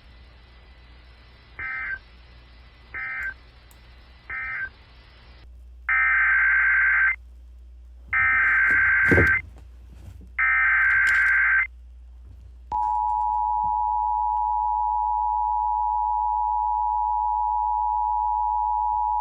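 Emergency Alert System tones: three short data bursts, the end-of-message code that closes one alert, then three longer, louder bursts of screechy two-pitch data, the SAME header that opens the next alert. About 13 seconds in, the steady two-tone attention signal starts and holds.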